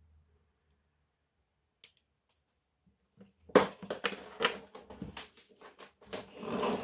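Small hard objects being handled: a single sharp click a little under two seconds in, then from about halfway a dense run of clicks and knocks mixed with scraping and rustling.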